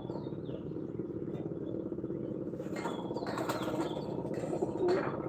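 Racing pigeons' wings flapping in short bursts, about three seconds in and again near the end, over a constant low background sound.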